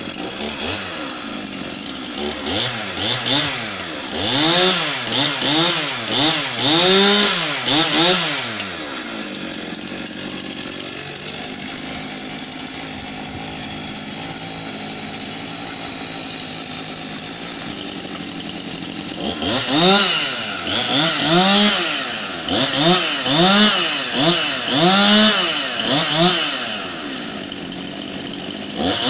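Stihl two-stroke chainsaw engines, MS 261 C-M and MS 391, revved up and down in short bursts about once a second. They then idle steadily for about ten seconds, and the revving bursts return for the last third.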